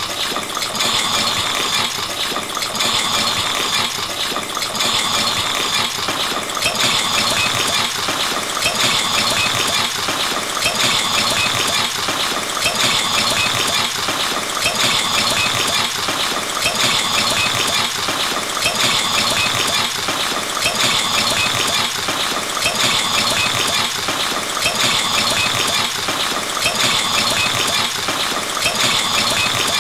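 Ballpoint pen scratching rapidly over paper in dense hatching strokes, a continuous dry rattle that swells and eases about every two seconds.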